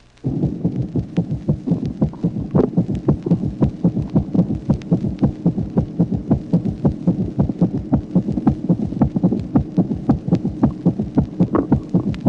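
Recorded heart sounds with a gallop rhythm: a fast heartbeat with an added third heart sound from ventricular filling, giving a rapid run of evenly spaced beats. A steady low hum runs under the beats, which begin a moment in.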